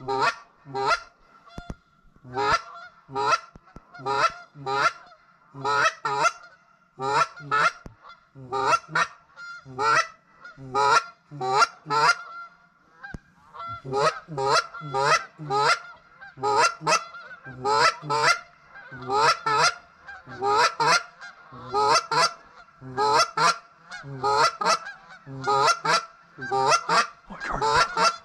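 Geese honking overhead: a continuous run of loud, short honks, mostly in pairs, about once a second.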